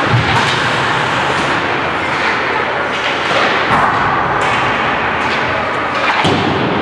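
Ice hockey game in play: skates, sticks and puck on the ice, with several sharp clacks and thuds over a steady noise from the rink.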